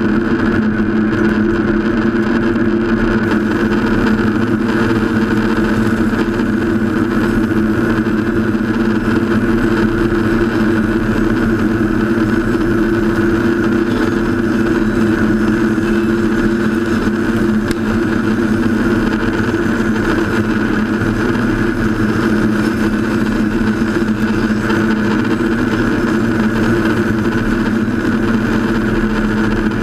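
Horizontal band sawmill running steadily while its blade resaws an old reclaimed barn timber lengthwise: a continuous machine drone with steady humming tones and the hiss of the cut.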